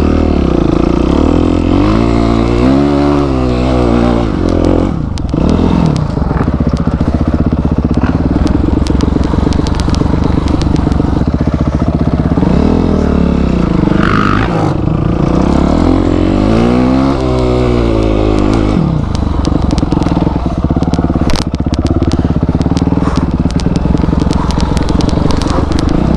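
250 cc off-road motorcycle engine running hard on a rough trail, its revs swelling up and dropping back three times and otherwise held steady.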